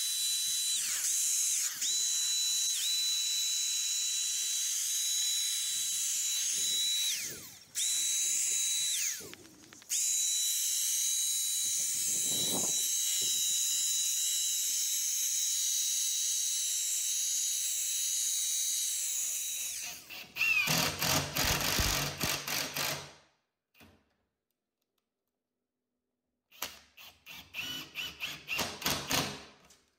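Cordless 20V HVLP paint sprayer running: a steady hiss of spraying paint with a high motor whine, which sags in pitch and cuts out briefly twice about a third of the way in. About two-thirds through, a Bosch 18V cordless driver drives screws through a caster's mounting plate in two runs of quick rattling strokes with a pause between.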